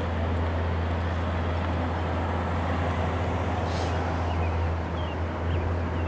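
A steady low engine drone with a few steady higher tones over it, unchanging throughout, with a brief hiss about four seconds in.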